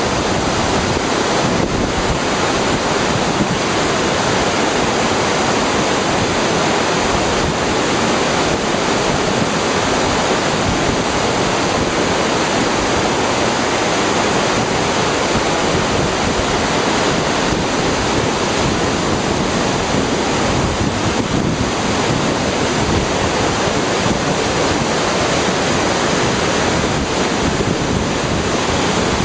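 Waterfall: falling water crashing and splashing in a loud, steady rush that does not let up.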